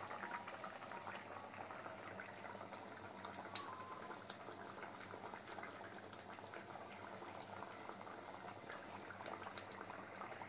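Chicken curry gravy simmering in a metal pot, a steady mass of small bubbling pops and crackles.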